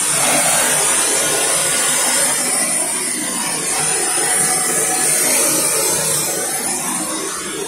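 Handheld gas torch burning with a steady hissing rush as its blue flame heats copper pipe joints on a brass shower valve for soldering.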